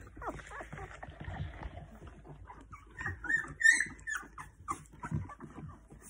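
A mother golden retriever licking and snuffling at her 11-day-old puppies, with a short run of high-pitched puppy squeaks a little past halfway.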